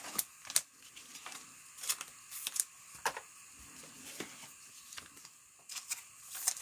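Trading cards and packs being handled: irregular sharp clicks and brief scrapes, about one or two a second.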